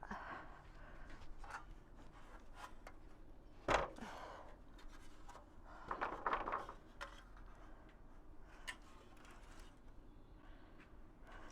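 Light rubbing and scattered clicks of hands-on work, with one sharp knock about four seconds in and a short spell of rustling and scraping about six seconds in.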